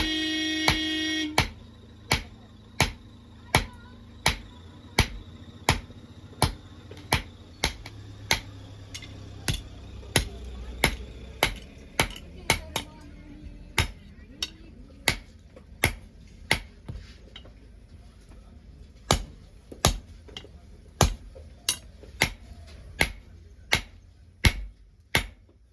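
Blacksmith's hammer striking metal in a steady rhythm, about three blows every two seconds, with a short pause past the middle and quicker blows near the end. A loud steady tone with several pitches opens the sound and cuts off suddenly about a second in.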